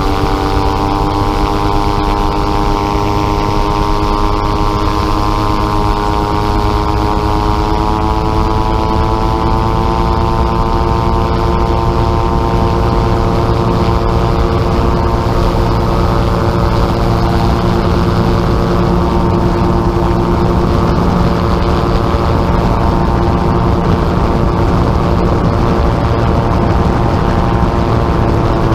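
Gyrocopter's engine and propeller running hard through the takeoff roll, the pitch rising a little over the first several seconds and then holding steady, with a rushing noise over it.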